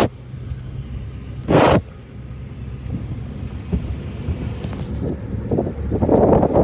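Outdoor rumble with wind on the microphone: a steady low rumble, a short loud gust-like burst about one and a half seconds in, and rougher buffeting growing louder near the end.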